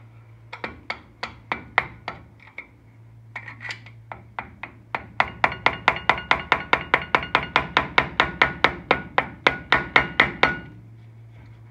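Rubber mallet tapping a brake caliper slide pin into the caliper bracket of a 1994 Ford Ranger's front brake, a brief ring after each tap. The taps come in scattered groups at first, then in a steady run of about four a second from about five seconds in until near the end, over a steady low hum.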